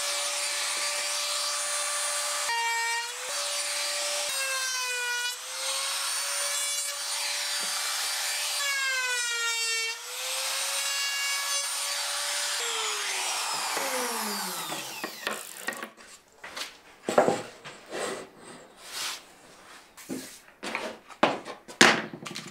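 Handheld trim router running at full speed while cutting a chamfer on plywood edges, its high whine sagging in pitch several times as the bit takes the cut. About 13 seconds in it is switched off and winds down, falling in pitch, and scattered knocks and taps of wood being handled follow.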